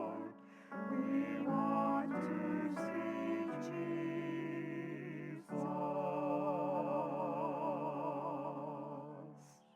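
A worship song sung with vibrato over a sustained accompaniment, ending on one long held note that fades out just before the end.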